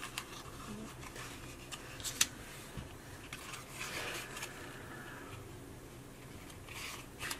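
Faint rustling and rubbing of paper pieces being handled and folded, with scattered small clicks and one sharp tap about two seconds in.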